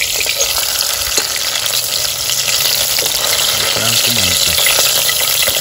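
Hot oil sizzling steadily as food fries in a small stainless steel pot, with crackly pops and a fork being worked through the pan.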